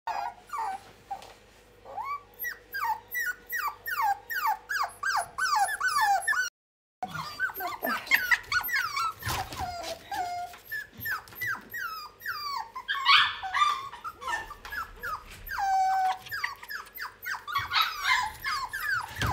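Puppies whimpering and squealing: a quick string of short, high calls that each fall in pitch, about two or three a second, broken by a moment of silence about six and a half seconds in.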